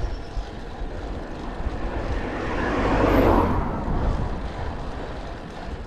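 Wind and road rumble on a camera microphone while a road bike is ridden on asphalt. A rushing noise swells to its loudest about halfway through and fades again.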